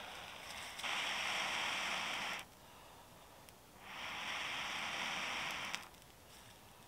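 Long breaths blown into a smouldering bundle of dry fern tinder to coax it into flame: two steady hisses of about two seconds each with a pause for breath between. A single sharp crackle comes at the end of the second breath.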